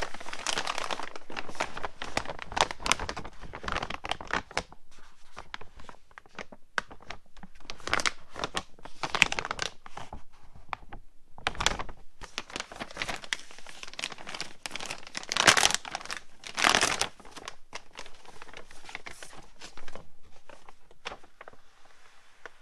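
Plastic packaging bag crinkling and rustling as it is handled and opened by hand, with several louder rustles and rips along the way, quieting near the end.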